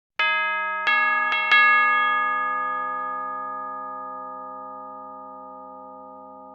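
Chimes struck four times in quick succession, the last three close together, then ringing on and slowly fading.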